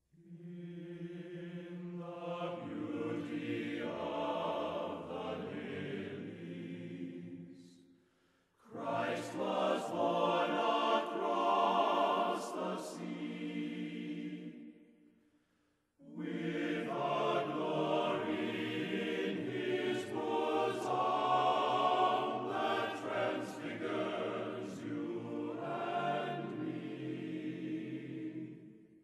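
Chant-like choral singing in three passages, breaking off twice into short silences, about eight seconds in and again near the middle.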